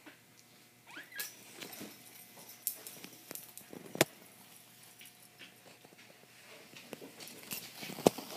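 Plastic bottle toy clattering and knocking on a hard stone floor as a kitten bats at it, with scattered light taps and two sharp knocks, one about halfway through and one near the end.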